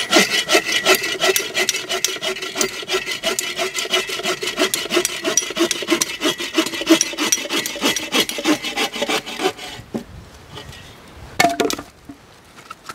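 Hand saw cutting through a dry, dead branch in quick, even back-and-forth strokes. The sawing stops about ten seconds in, and a short knock follows a little later.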